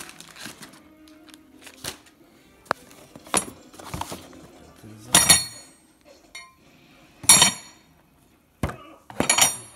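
Metal lift-kit hardware clinking and ringing as the parts are handled and knocked together. There are several sharp ringing clinks, the loudest about five and seven seconds in.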